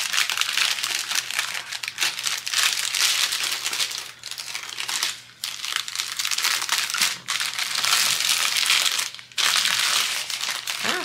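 Clear plastic packaging and small plastic bags of diamond-painting drills crinkling as they are handled, with a few brief pauses.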